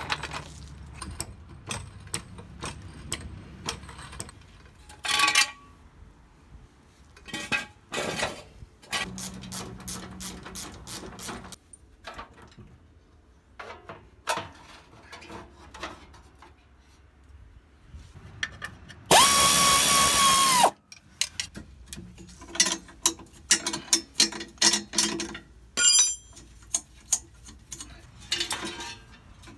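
Tools at work taking apart a VW bus for a clutch swap: scattered metal clanks, knocks and clicks, with a power tool running with a steady whine for about a second and a half about two-thirds of the way through.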